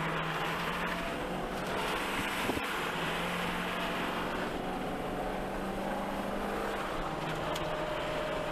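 Steady road noise heard from inside a moving pickup truck's cab on a wet road: tyre hiss with the engine's low hum, which shifts slightly in pitch a couple of times.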